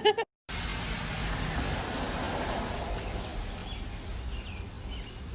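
Steady rushing background noise, with a few faint high chirps in the second half.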